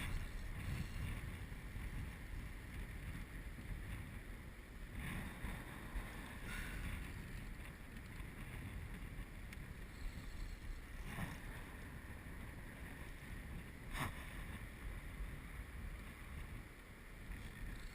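Wind buffeting the microphone as a steady low rumble, with a few faint, brief clicks or knocks.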